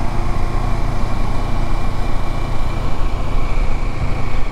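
Motorcycle engine running steadily while riding along at street speed, a constant deep low rumble.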